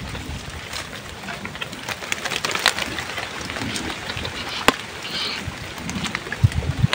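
Steady rain falling, with many sharp drips and taps scattered through it and a few low thumps near the end.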